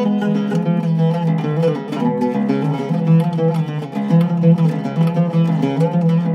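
Cedar-topped Zaryab oud played solo: a continuous, flowing run of quick plucked notes over a recurring low note.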